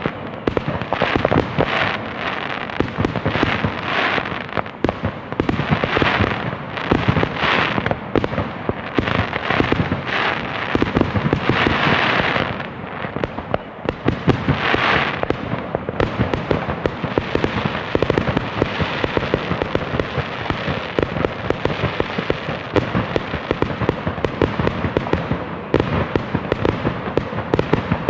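Fireworks going off: a dense, unbroken run of bangs and crackling, with hissing bursts every second or two during the first half.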